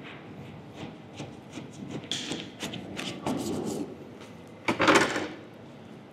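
A large knife cutting down through a crusty sesame-topped burger bun and its fillings onto a wooden board: a run of small crackles and crunches, then a louder crackling burst about five seconds in.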